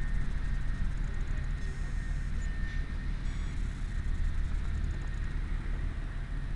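Caterpillar 977L track loader's diesel engine running steadily, a low even rumble.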